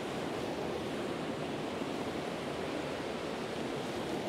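Trout stream water rushing steadily over rocks around a wading angler, an even unbroken rush.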